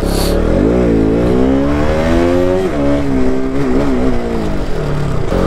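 KTM 200 single-cylinder motorcycle engine under throttle, its pitch climbing for about two seconds, dropping sharply at a gear change, then rising and dipping again before easing off near the end.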